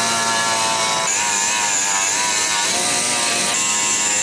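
Angle grinder with a soft paint-stripping pad running against the steel edge of a tractor bucket, taking the paint off down to bare metal. Its motor whine is steady, shifting and wavering in pitch about a second in and again near the end as the pad bears on the metal.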